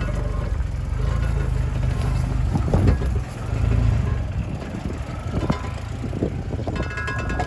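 Jeep Wrangler driving off-road: a low engine and drivetrain rumble runs throughout, with a few sharp knocks.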